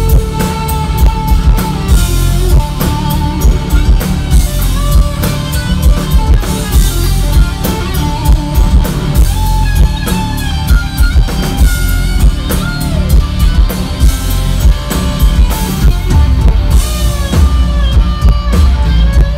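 Live rock band playing: electric guitars, electric bass and a drum kit, with a very heavy, booming bass drum and bass end from close to the stage's subwoofers.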